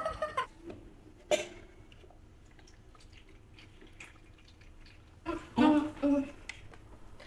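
Mostly quiet room tone in a small room, broken by short snatches of voices: one right at the start, a brief one about a second in, and two short ones around five and a half seconds in.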